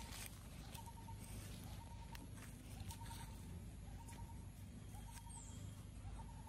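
Young macaques wrestling on dry leaf litter: faint rustles and scuffs over a low steady rumble, with short chirps recurring about once a second.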